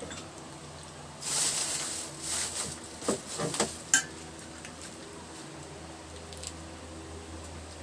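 Food and packaging handled at the table: a burst of rustling, then a run of irregular crackling and clattering, ending in one sharp click about four seconds in. A low steady hum lies underneath.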